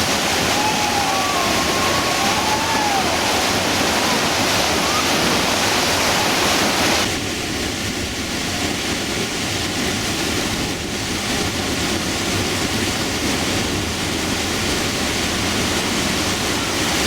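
Steady rushing of a Class V whitewater rapid. About seven seconds in it switches abruptly to a slightly quieter, duller rush.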